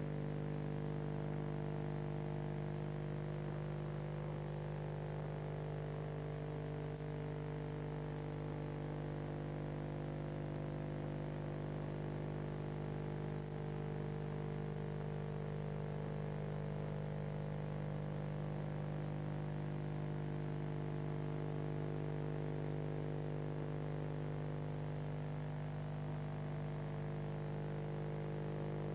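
Steady electrical mains hum, a buzz with a stack of fixed overtones that does not change at all.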